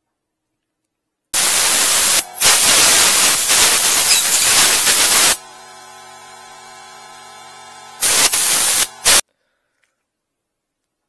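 Compressed-air blow gun blasting air, a loud hiss for about four seconds with a brief break, then two short blasts near the end, clearing gunk from a drain jetter's caked-up rotating nozzle part. A quieter steady hum sits between the blasts.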